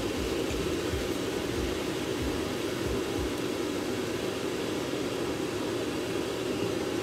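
Steady whirring hum, like a fan running, even in level with no distinct knocks or pours standing out.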